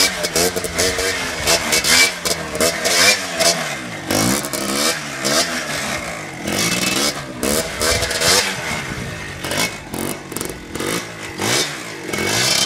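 Small motorcycle engine revving up and down over and over, its pitch rising and falling about once a second, as the throttle is blipped to hold the bike up in a wheelie.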